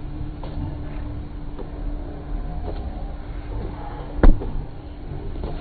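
A football struck hard once with a full kick about four seconds in, a sharp loud thud. A few faint taps of the ball come before it, over a steady low street rumble.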